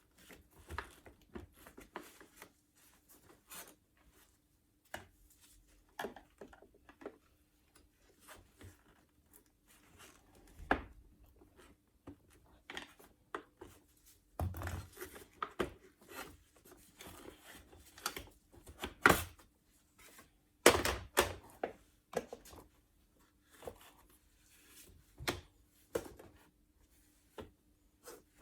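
Irregular clicks, knocks and rustles of parts being handled during work on a vacuum cleaner, with the loudest knocks about halfway through and again a few seconds later, over a faint steady hum.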